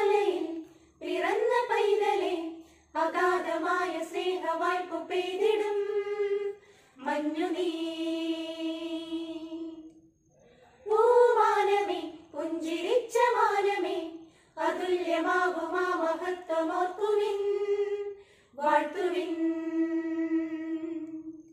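Women's choir singing a Christmas carol a cappella, in phrases with short breaks between them, holding long notes near the middle and again near the end.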